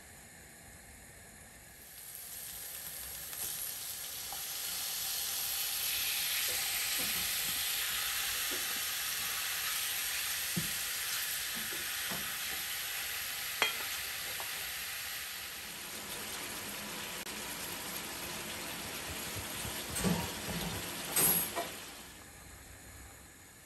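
Strips of beef sizzling as they fry in a hot pan, starting about two seconds in, while a wooden spatula stirs them with a few short knocks against the pan. The sizzle eases in the second half as the meat lets out its juices and stews in them.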